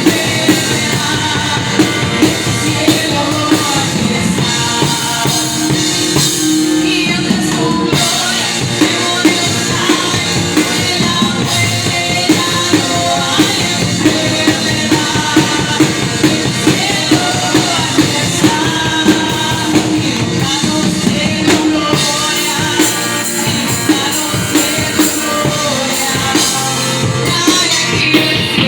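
Live church worship band playing, a drum kit keeping a steady beat under sustained keyboard and guitar chords.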